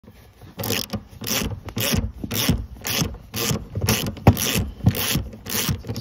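Socket ratchet wrench working a seat mounting bolt, its pawl clicking in short runs on each swing, about two strokes a second.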